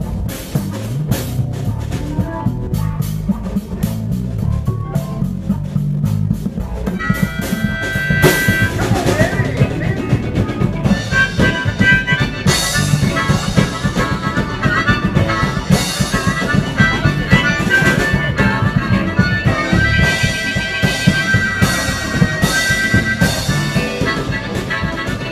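Live band playing an instrumental passage: bass guitar and drum kit, with a lead instrument coming in about seven seconds in on sustained high held notes over the rhythm.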